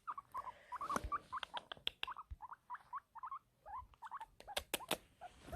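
A small animal squeaking: a run of short, high squeaks and chirps, with a few sharp clicks in between.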